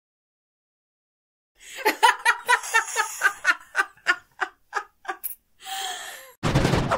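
A person laughing: a quick run of ha-ha bursts starting about a second and a half in, slowing and thinning out, then a breathy wheeze with a falling pitch. A loud noisy sound cuts in just before the end.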